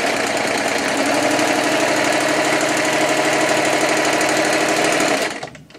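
Small Singer electric sewing machine running steadily as it stitches through folded fabric, with a rapid even needle rhythm. It stops about five seconds in.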